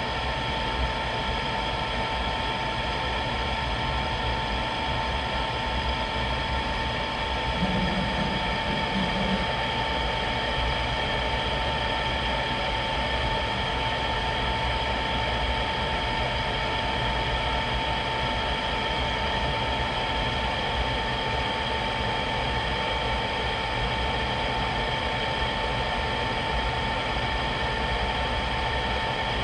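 Newly installed vent blower (inducer) motor on a Rheem-built GE power-vent gas water heater, running steadily with the burner lit: an even hum with a steady high tone over it. It sounds fine, a sign that the replacement has cured the noise of the old, failing blower motor.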